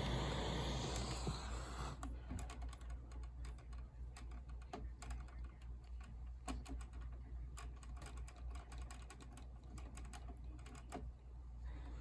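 A hiss cuts off sharply about two seconds in. It is followed by irregular clicking of typing on a computer keyboard over a steady low hum.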